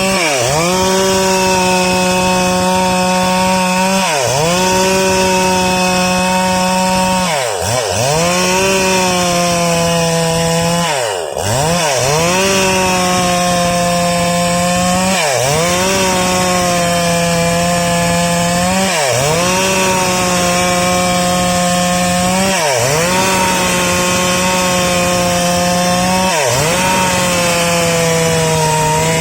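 Stihl MS 382 two-stroke chainsaw at full throttle ripping lengthwise through a salam wood log. The engine pitch sags slightly under load, then dips sharply and picks up again about every four seconds.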